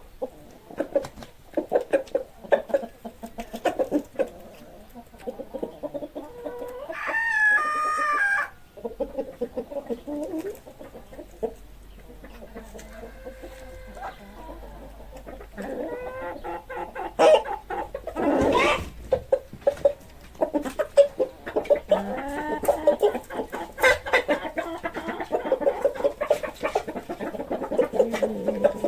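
Chickens clucking continuously, with a rooster crowing once about seven seconds in and another loud call near the middle.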